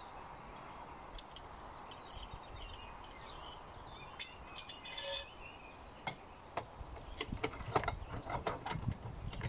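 Faint birds chirping over a steady outdoor background, then from about two-thirds of the way in a run of small clicks and knocks as parts are handled and fitted on a miter saw.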